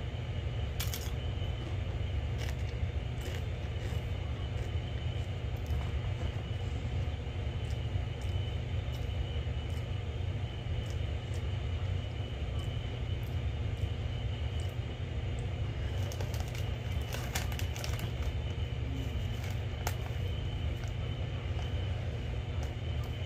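Doritos tortilla chips being chewed, giving scattered sharp crunches, some close together near the middle, over a steady low rumble.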